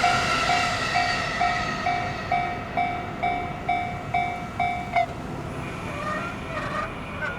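Japanese railway level-crossing warning bell ringing, an electronic two-tone ding repeating about twice a second, which stops suddenly about five seconds in as the crossing clears. The noise of the passing train fades underneath.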